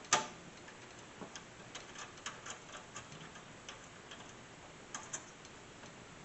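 Rummaging through small screws and hardware: one sharp click at the start, then scattered light clicks and ticks, with a couple more near the end.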